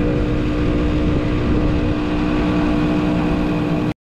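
Portable 12-volt air compressor running steadily while inflating a 4WD tyre back up after beach driving, a loud steady hum over a fast mechanical chatter. It cuts off suddenly near the end.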